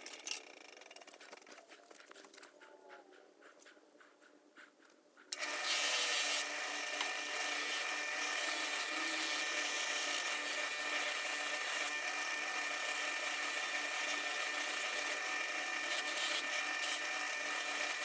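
Small electric power tool used to clean up a steel screwdriver shank: it dies away over the first few seconds, then starts up abruptly about five seconds in and runs steadily with a high whine.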